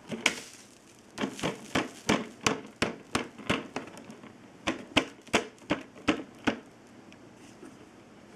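A run of about fourteen sharp knocks or clicks, roughly three a second, with a short pause about two-thirds of the way through.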